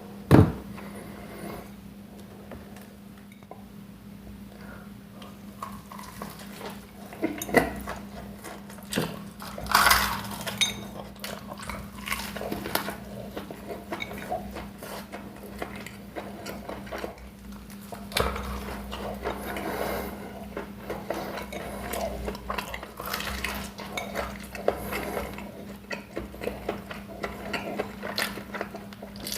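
Close-miked eating of fried chicken and rice from a plate: chewing and food handling, with a sharp knock about half a second in and scattered clinks of dishes and cutlery.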